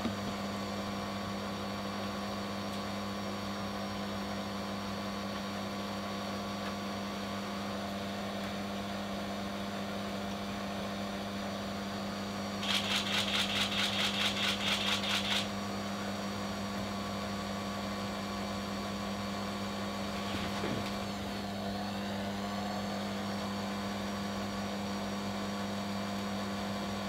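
Steady low electric hum of a running motor. For about three seconds midway, a rapid high-pitched chirping comes in, about five pulses a second, louder than the hum.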